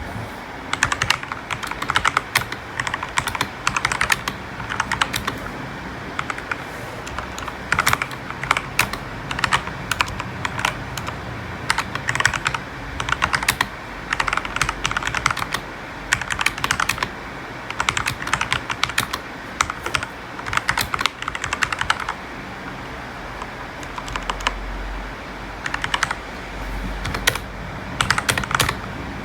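Typing on a Redragon Kumara mechanical keyboard with lubed Outemu Red linear switches and rubber O-rings under the keycaps: fast runs of key clicks and clacks in bursts of a second or two, with short pauses between them.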